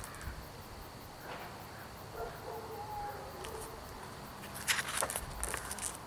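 Quiet outdoor background with a few faint bird chirps. About five seconds in, a short rustle and flap as a hardcover picture book's page is turned.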